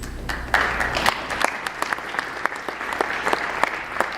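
Audience applauding, dense clapping with individual sharp claps standing out, beginning about half a second in.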